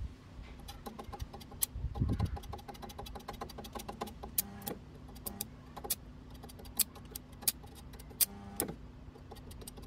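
Stick welding with a 2.0 mm E7018 electrode that will not hold an arc: irregular sharp crackles and a couple of short buzzing sputters as the arc catches and dies, over a steady low hum.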